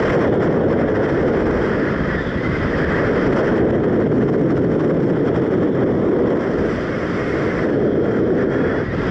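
Strong wind rushing over the microphone in flight under a paraglider, a loud, steady buffeting noise.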